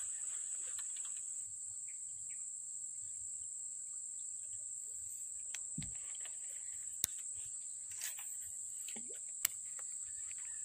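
Steady high-pitched insect chorus, a continuous chirring drone, with two sharp clicks about seven and nine and a half seconds in.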